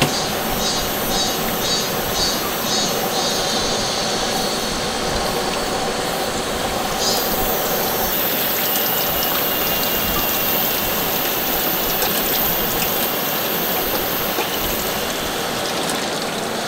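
Steady heavy rain hissing on a tarp. In the first three seconds a rhythmic clicking or scraping runs at about two strokes a second.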